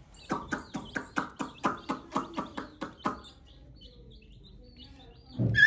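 A rapid series of about a dozen short, squeaky animal calls, roughly four a second, stopping about three seconds in, followed by faint high chirps.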